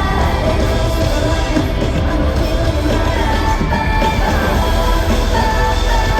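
Live K-pop song played loud through an arena PA, with a heavy steady bass beat and women's voices singing over it.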